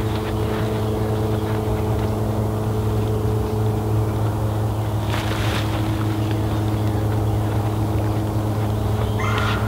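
Alcohol stove burning steadily under a small carbon steel pan as it heats, a low steady roar with a hum in it. Brief higher sounds about five seconds in and near the end.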